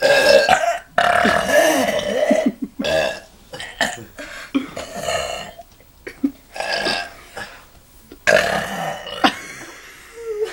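A string of loud human burps, one after another: two long, drawn-out belches first, then several shorter ones.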